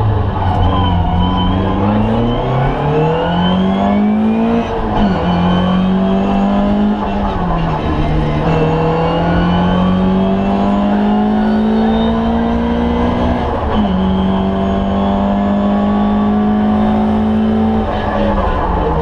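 Ford Escort Mk2 1300 rally car's four-cylinder engine under hard acceleration, heard from inside the cabin. The engine note climbs steadily and drops sharply twice, about five and fourteen seconds in, as it shifts up a gear, and it dips and picks up again around seven to eight seconds in as the driver lifts off.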